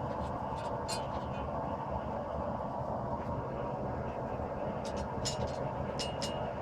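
Steady roar of a forge running throughout. About five seconds in, hammer strikes on hot steel at the anvil begin, two to three a second, some with a short metallic ring.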